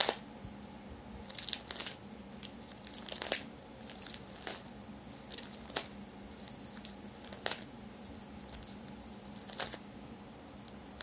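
Clear plastic binder sleeve pages crinkling as they are turned, in short crackles every second or two.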